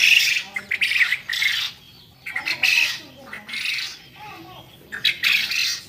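A flock of caged quail squawking in short, irregular bursts.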